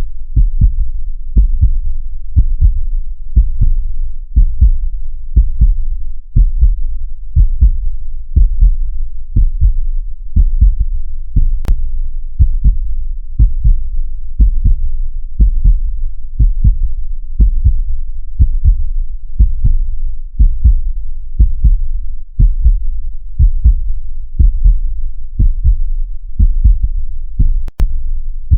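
Recorded heartbeat: a steady, slow rhythm of deep double thumps (lub-dub). A faint click sounds once about twelve seconds in and again near the end.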